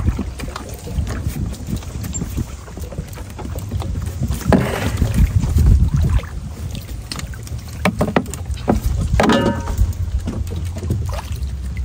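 Water sloshing and splashing with scattered knocks as a trap is set in the water. Wind rumbles on the microphone.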